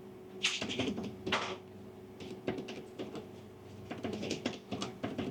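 Keys being tapped in short irregular runs of clicks as a price total is added up, with a couple of brief hissy rustles near the start.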